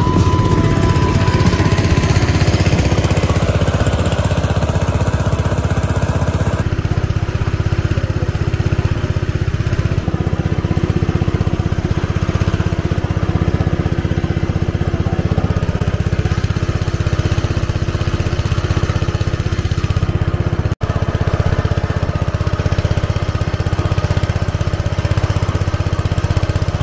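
Small motor of an outrigger boat running steadily at cruising speed, a continuous low drone.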